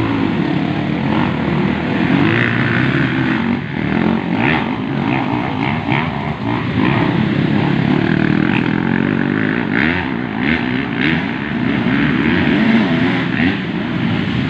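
Several motocross dirt bikes racing, their engines revving up and down over and over in overlapping rising and falling whines.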